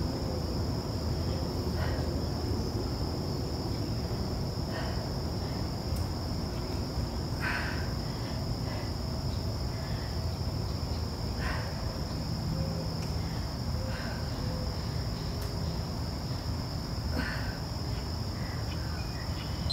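Steady high-pitched insect drone, one unbroken buzzing tone, over a low steady hum, with a few faint short rustling sounds every few seconds.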